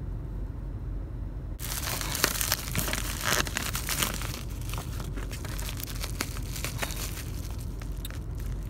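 Plastic packaging crinkling and crackling as it is handled, including a bubble-wrap bag. It starts about a second and a half in, is densest for the next few seconds, then goes on lighter.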